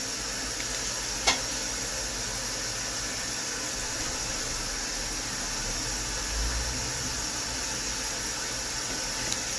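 A steady, even hiss with a single faint click about a second in.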